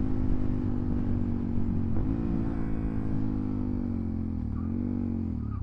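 Suzuki DR-Z400SM supermoto's single-cylinder four-stroke engine running under way. Its revs dip and climb back about two seconds in and a few times near the end, as with gear changes or throttle rolled off and on.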